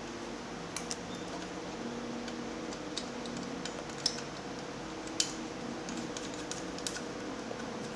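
Light metallic clicks and taps from a B-flat trumpet's valve block as its third piston valve is fitted into the casing and turned so its valve guide lines up. A low steady hum runs underneath.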